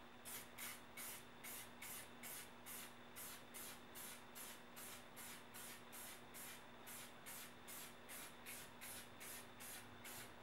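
Aerosol can of spray paint sprayed in short, quick hissing bursts, about two or three a second, dusting paint through a camouflage stencil.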